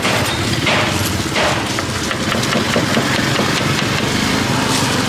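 An engine or motor running steadily with a low hum, with a couple of short hissing or scraping noises over it about a second in.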